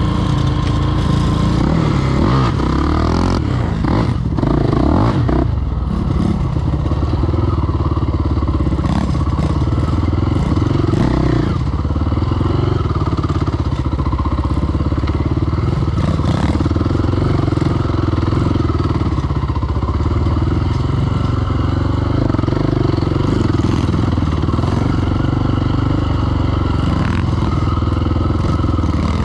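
KTM 525 XC quad's single-cylinder four-stroke engine running under way on a dirt track, its revs rising and falling with the throttle.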